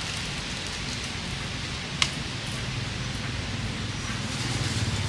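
Steady hiss of rain, with a single sharp click about two seconds in and a low hum growing louder near the end.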